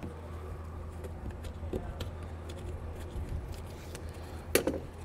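Small metal clicks and one sharp clank near the end as parts of an old RV baggage-door lock are handled, over a steady low rumble.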